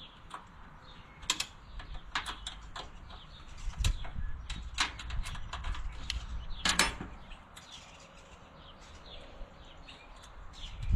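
Scattered metal clicks and knocks of hand-tool work on a garden tractor's seat mounting, with birds chirping.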